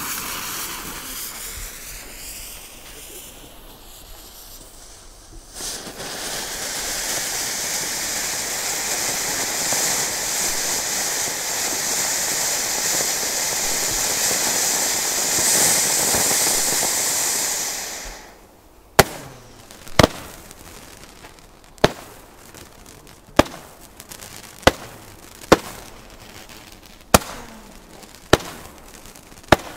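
Jorge 'Orient' ground fountain firework: the lit fuse hisses for about five seconds, then the fountain erupts into a loud steady hiss of spraying sparks for about twelve seconds and cuts off abruptly. It is followed by a string of about nine sharp single bangs, roughly one a second.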